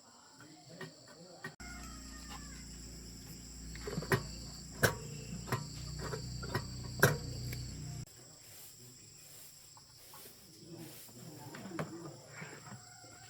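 Crickets trilling steadily. For about six seconds in the middle a low hum runs, with several sharp knocks in it.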